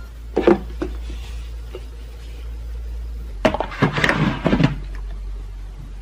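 Plastic toiletry bottles being set down one after another on a tray on a dresser top: a couple of knocks about half a second in, then a cluster of knocks and light rattles around four seconds in.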